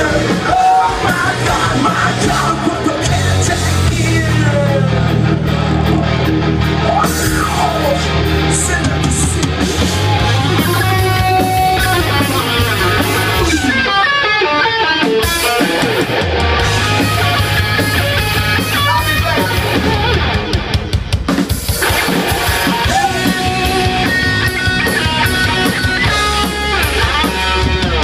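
Live rock band playing loud: distorted electric guitars, bass and a drum kit, with a short run of hard drum hits about two-thirds of the way through.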